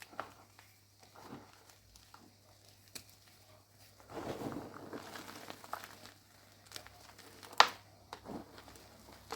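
Block of gym chalk being crunched and crumbled, with scattered small crackles and a longer stretch of dense crumbling about four seconds in. A single sharp crack, the loudest sound, comes about two seconds before the end.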